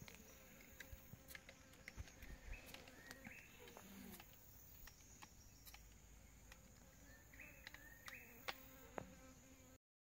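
Faint tropical forest ambience: insects buzzing and chirring, a few short high chirps, and small clicks and rustles, with one sharper click about eight and a half seconds in.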